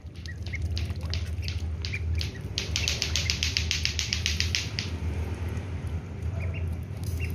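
Crested ducklings dabbling at grain on wet ground: a rapid run of wet bill clicks, about eight a second through the middle, with a couple of faint peeps in the first second, over a steady low hum.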